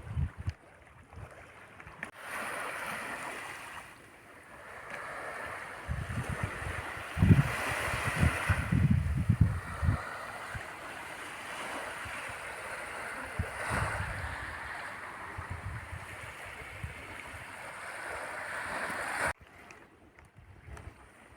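Black Sea waves washing onto a beach, swelling and ebbing, with wind buffeting the microphone. The sound cuts off abruptly near the end.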